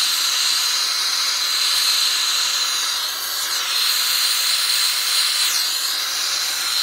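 Hand-held gas torch burning with a steady hiss and a thin high whistle, its flame heating the thin brass top tank of an old tractor radiator to solder pinholes.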